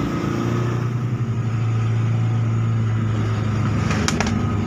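Car engine running steadily with road noise, heard from inside the cabin while driving, with a couple of brief clicks about four seconds in.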